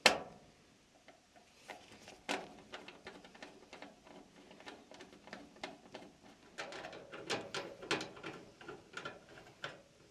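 Nut driver working a nut loose on a dryer's sheet-metal control panel bracket: a sharp knock at the start, then a string of small metallic clicks and scrapes, busiest about seven to eight seconds in.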